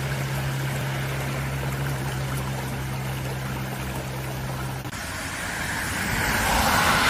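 Rushing floodwater with a steady low hum under it. The hum stops at a cut about five seconds in, and the rushing then swells louder toward the end.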